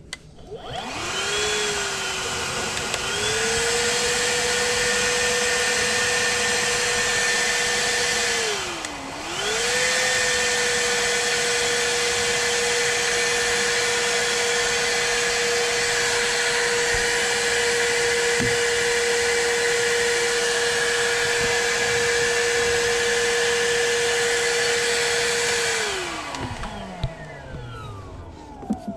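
Shop vac switched on and running steadily with a whine and rushing air, sucking out a clogged furnace condensate drain line. Its pitch dips and recovers briefly about nine seconds in. Near the end it is switched off and winds down with a falling whine.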